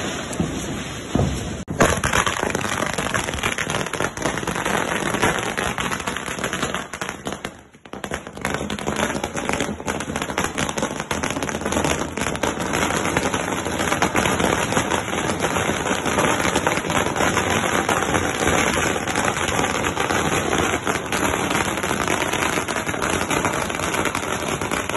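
A long run of firecrackers bursting in rapid, continuous succession, a dense crackle of bangs that starts about two seconds in and keeps going, with a brief lull about a third of the way through.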